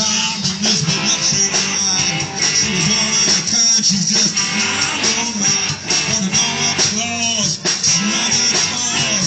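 Live rock band playing loud: electric guitar and drums, with singing, heard from the audience in front of the stage.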